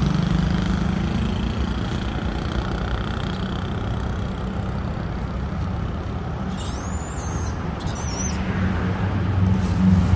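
Steady rumble of road traffic passing on the road, swelling again near the end, with a few short high squeaks about seven seconds in.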